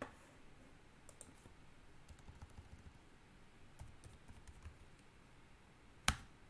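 Computer keyboard typing: scattered light keystrokes, then one much louder key press about six seconds in, the Enter key sending the command.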